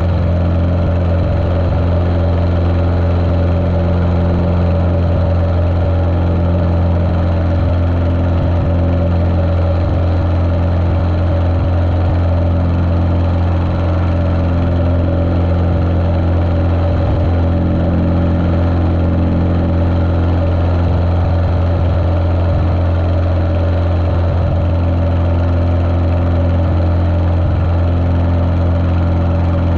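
Cessna 150L's Continental O-200 engine and propeller running steadily at an even speed, sounding muffled through a GoPro's waterproof case.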